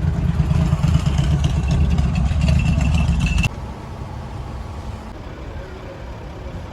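Steady outdoor vehicle and traffic noise with a loud low rumble. About three and a half seconds in it cuts abruptly to a quieter steady hum.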